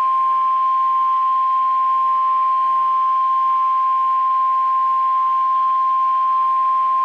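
NOAA Weather Radio warning alarm tone: one loud, steady single-pitch tone near 1 kHz (the 1050 Hz alert tone), held without a break, which signals that a warning message is about to be broadcast.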